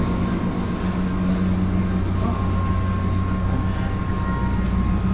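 Steady low machinery hum inside a car ferry: the ship's engines and ventilation drone evenly, with a few faint steady tones above.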